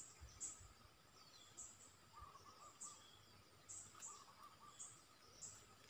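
Faint bird calls: short high chirps repeating every half second or so, with a brief lower warbling bulbul phrase about two seconds in and again near four seconds.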